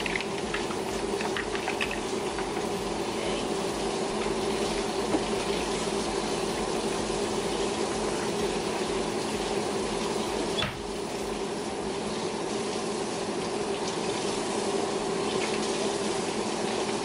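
Seafood boil broth boiling in a wok over a gas burner: a steady bubbling hiss, with a few light clicks of metal tongs among the shellfish in the first couple of seconds.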